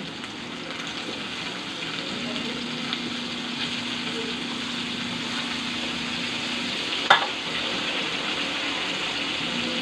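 Raw shrimp frying in melted butter and garlic in a steel wok: a steady sizzle as they are tipped in, with one sharp knock about seven seconds in.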